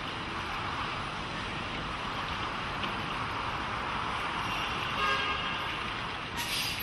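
Street traffic: a steady hum of passing vehicles, with a car horn tooting briefly about five seconds in.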